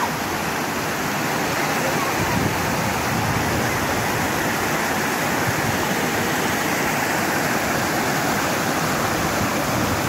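Steady rushing of water cascading over a low ledge, an even, unbroken roar of falling water.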